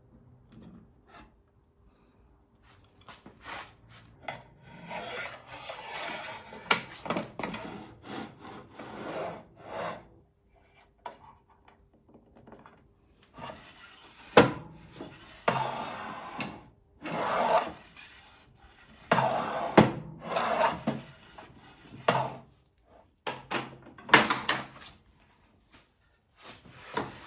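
Irregular rubbing and scraping of hard parts being handled and slid against each other, with a couple of sharp knocks partway through.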